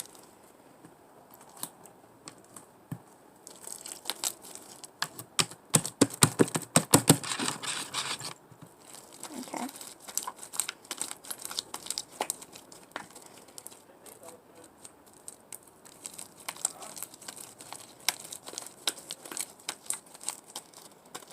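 Sticky glue slime being kneaded and pulled by hand, giving quick wet crackles and clicks, densest from about four to eight seconds in.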